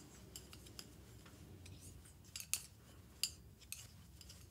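Metal knitting needles clicking and tapping against each other as stitches are knitted and purled in 1x1 rib: faint, irregular clicks, with a couple of louder ones around the middle.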